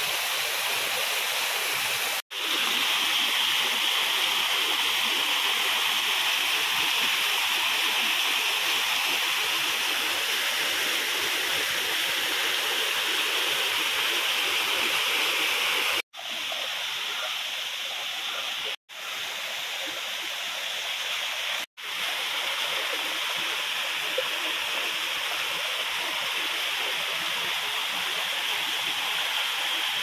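Water rushing and splashing steadily from a small waterfall and over stream rocks. The sound cuts out briefly four times where clips are joined.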